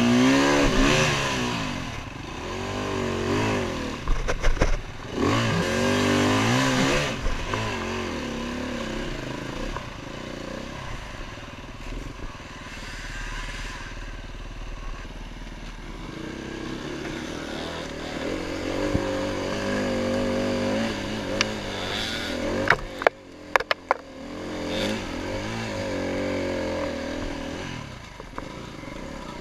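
Enduro motorcycle engine revving up and down on a muddy woodland trail, its pitch rising and falling with the throttle, steadier after the first few seconds. A few sharp knocks about three-quarters of the way through.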